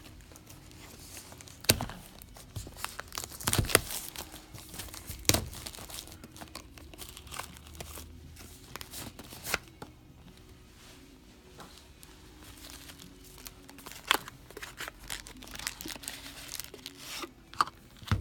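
Plastic wrapping on a Magic: The Gathering prerelease kit being torn open and crinkled, in irregular bursts with sharp snaps. The loudest snaps come in the first few seconds and again near the end.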